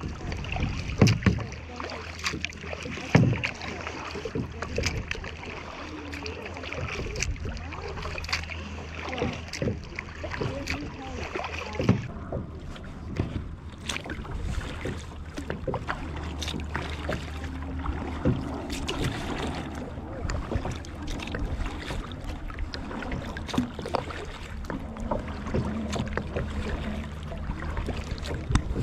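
Kayak paddle strokes splashing and water lapping against a plastic sit-on-top kayak's hull, with scattered sharp knocks, the loudest about one and three seconds in, over a low steady rumble.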